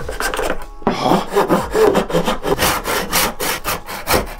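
Hand saw cutting through a blank of hard holly wood in quick back-and-forth strokes.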